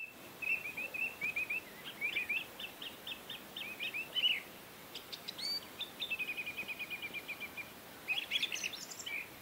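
Small songbirds singing: quick runs of short high chirps, with a fast trill of evenly repeated notes about six seconds in.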